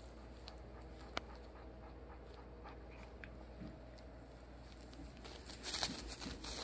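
Faint sounds of a Yorkshire terrier in labour: quiet breathing and small movements on her bedding, with a single sharp click about a second in. Near the end comes a louder cluster of breaths and stirring as a puppy in its sac is pushed out.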